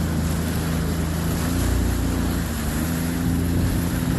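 Jet ski engine running steadily at low speed under a haze of wind and water noise, its pitch stepping up slightly about three seconds in.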